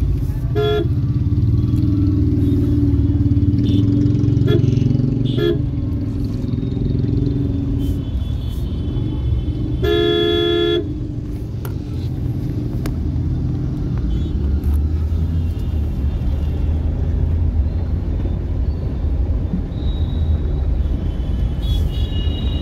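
Steady low rumble of a car driving through floodwater, heard from inside the cabin, with traffic horns tooting a few short times and one longer, louder horn blast about ten seconds in.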